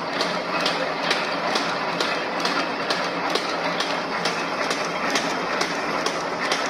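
Automatic paper bag making machine running, a steady mechanical clatter with a regular click about twice a second as it cycles.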